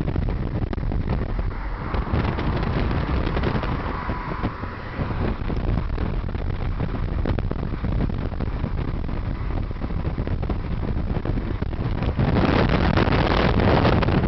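Wind rushing over the microphone together with road and engine noise from a car moving at highway speed. The rush grows louder about twelve seconds in.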